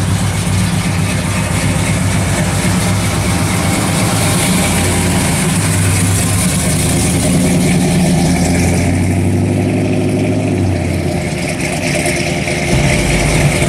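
1957 Chevrolet two-door sedan's engine running at low speed with a low exhaust rumble as the car rolls past and pulls away. The sound changes a little near the end.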